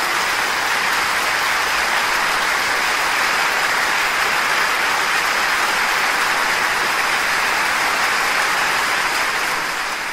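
Concert audience applauding at the end of a live song, fading out near the end.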